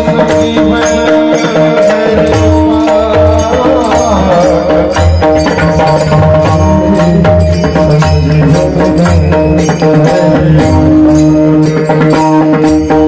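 Devotional music with a singer's wavering alaap about four seconds in, over steady held drone notes and a drum rhythm.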